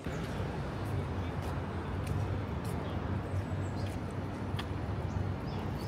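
Outdoor city street ambience: a steady deep rumble of traffic under a general noise, with a few sharp clicks and faint high chirps scattered through it.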